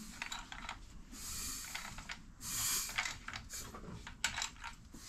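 Ratchet clicking in short runs, with a couple of longer hissing stretches, as the 2.0 L Ford Pinto engine's crankshaft is turned over by hand at the crank pulley bolt. The engine is being rotated to check that the new timing belt runs round without clashing.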